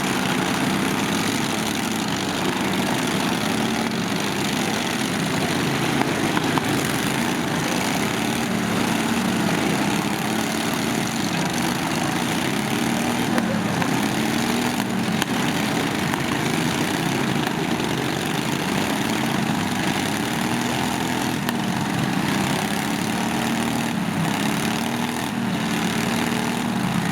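Lawn tractor engines running together, their pitch rising and falling in slow swells as they rev up and ease off.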